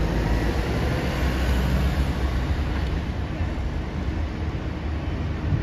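Busy road traffic: a car and London buses driving past close by, their engines making a steady low rumble.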